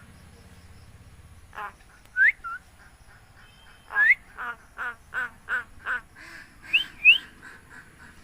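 Myna (shalik) calling: short upward-sliding whistles and a run of about six repeated notes, roughly three a second, midway through.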